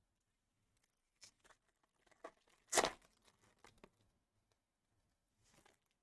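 Foil wrapper of a baseball card pack tearing and crinkling, one short loud tear a little under three seconds in, with a few softer rustles and clicks of cards being handled around it.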